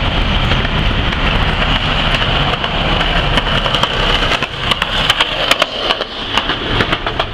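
Steady outdoor street noise: a low traffic rumble with a constant hiss. In the second half a run of sharp clicks and knocks sounds close by.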